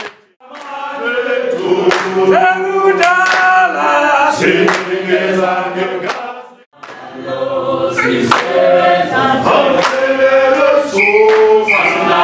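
A group of men and women singing together, with hand claps about twice a second. The singing drops out briefly twice, once just after the start and once about halfway through.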